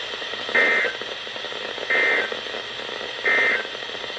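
Three short bursts of EAS/SAME data tones, the end-of-message code, each about a third of a second long and roughly 1.3 s apart, over steady radio hiss. The bursts signal that the severe thunderstorm warning broadcast has ended.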